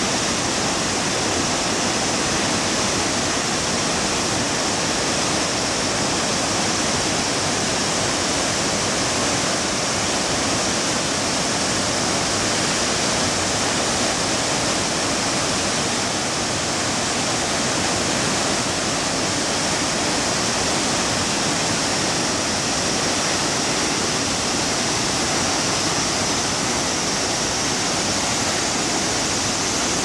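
A waterfall swollen by flood water pouring heavily, a loud, steady, unbroken rush of falling water and spray.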